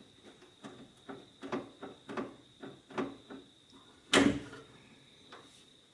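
Renault Koleos lower tailgate latch mechanism being worked by hand while it is tested to latch and unlatch: a run of short clicks, about two a second, then one loud clack about four seconds in.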